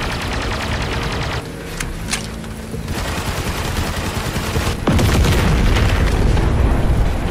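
Battle sound effects: gunfire and explosions, with a heavy boom about five seconds in whose deep rumble stays loud afterwards.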